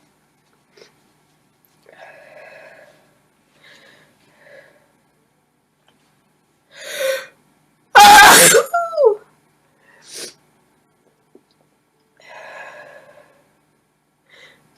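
A woman sneezing once: a breathy gasping intake about seven seconds in, then a sudden loud sneeze a second later with a voiced tail that falls in pitch.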